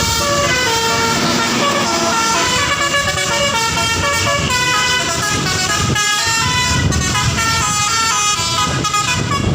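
Bus basuri horn, a multi-tone musical horn, playing a tune in quick stepping notes over the low rumble of the bus's engine.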